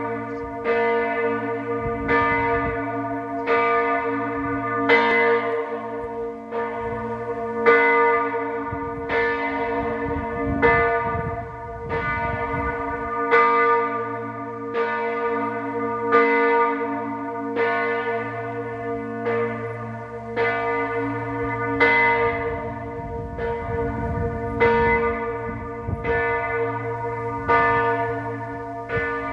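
A single large swinging church bell, over 3000 kg and 176 cm across with a strike note of B-flat (b0), rung alone. The clapper strikes about every one and a half seconds in an even rhythm, over a deep humming tone that rings on between strikes. This is the festive pre-ringing that announces a feast day.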